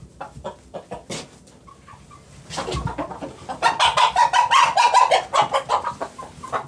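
Chickens clucking softly, then a rooster breaks into a loud, rapid run of clucks and squawks lasting about three seconds, a rooster 'talking a big game'.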